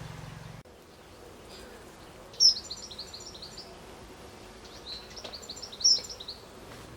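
A small songbird singing two short phrases, each a quick run of high notes falling slightly in pitch, one about two and a half seconds in and one near the end, over faint outdoor background noise.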